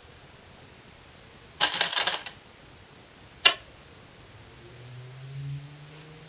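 Glass Go stones clicking together for a moment as one is picked up, then a single sharp click about halfway through as a stone is placed on a Shinkaya wood floor board. A faint low hum follows near the end.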